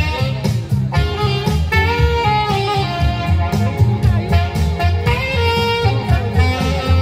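Live band music played through a PA system: a steady drum beat with heavy bass and a melody line over it.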